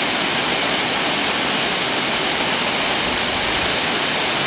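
Waterfall plunging into a pool: a steady rush of falling water.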